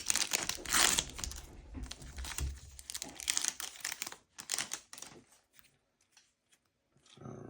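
Plastic foil wrapper of a Donruss Elite football card pack being torn open and crinkled for about five seconds, then a few faint clicks.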